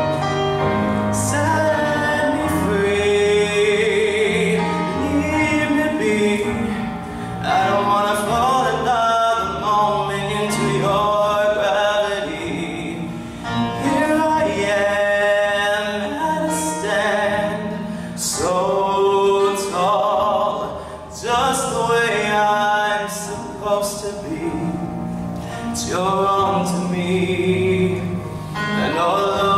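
A male singer performing a song into a microphone, heard through the PA, with low sustained musical accompaniment under his voice.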